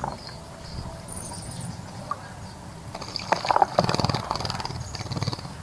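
A small bird splashing in a bird bath, its wings fluttering rapidly in the water in a bout from about three seconds in. A short, high, thin bird call sounds about a second in.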